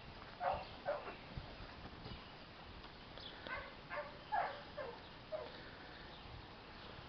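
A dog giving about seven short, high yips while playing, each dropping a little in pitch, a pair about half a second in and a quick run of them in the middle.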